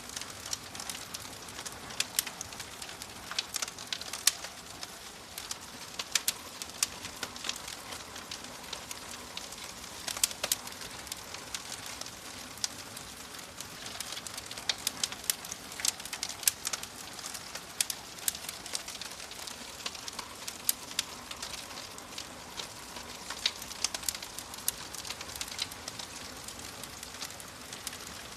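Wood fire crackling in a fireplace: irregular sharp pops and snaps, several a second, over a steady soft hiss.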